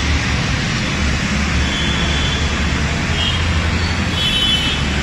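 Steady street traffic noise: a low engine rumble under a constant hiss, with a few faint short high tones.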